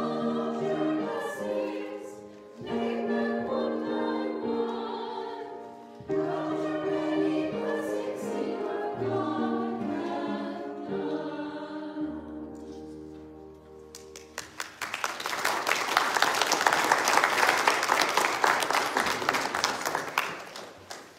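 A small group of women's voices singing a hymn in harmony, ending on a held chord about twelve seconds in. Then applause for about six seconds, louder than the singing.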